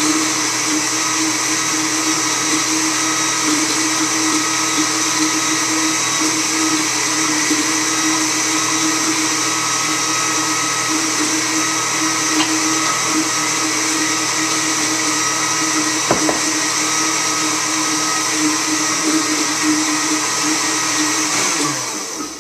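Countertop blender motor running steadily with a constant hum as it blends homemade mayonnaise of oil and egg, then winding down and stopping near the end.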